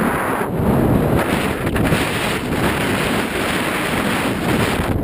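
Wind buffeting the microphone: a loud, steady rushing noise.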